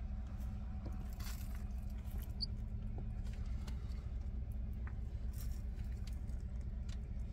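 Vehicle engine running, heard as a steady low rumble from inside the cab, with faint scattered clicks and rustles and a single short high peep about two and a half seconds in.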